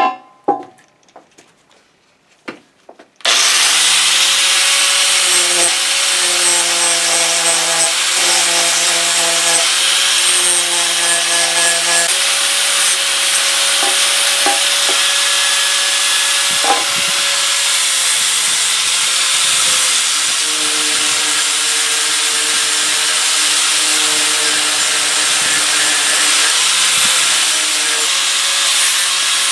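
Angle grinder grinding the weld bead off the steel end of a hydraulic cylinder rod: a few knocks of handling, then about three seconds in the grinder starts suddenly and runs steadily, its motor pitch shifting a little as the load changes.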